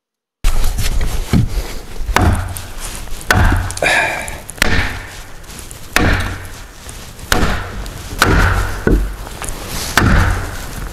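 Repeated hard knocks of a mallet striking the timber of a traditional post-and-beam frame, about one blow every second or so, starting about half a second in.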